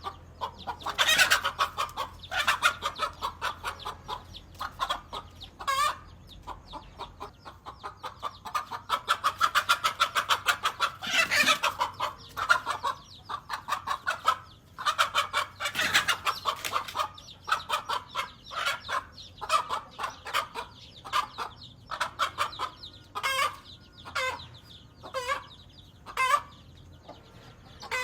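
Hen clucking in long rapid runs, broken by a few loud squawks, the alarm and defence calls of a mother hen facing a snake.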